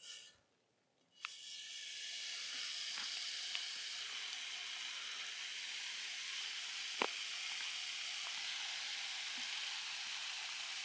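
Pepper bacon sizzling in a hot camp frying pan, starting about a second in as the first strip goes down and holding steady as more strips are laid in. A single sharp click about seven seconds in.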